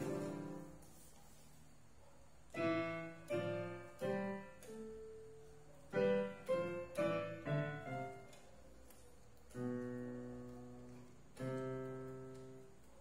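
Electronic keyboard with a piano sound, played in separate struck chords that fade away. After a quieter start the chords come one by one, quicker in the middle, then two longer chords ring out near the end.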